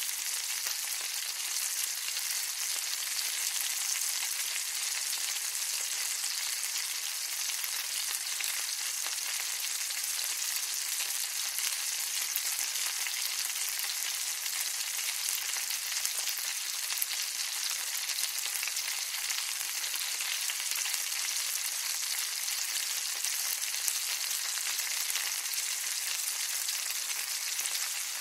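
Food frying in hot oil: a steady sizzle with fine, constant crackling and spitting that holds an even level throughout.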